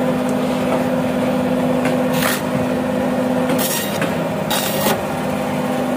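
Electric band saw running with a steady hum as whole tilapia are pushed through the blade. A few short rasps come as the blade cuts through the fish.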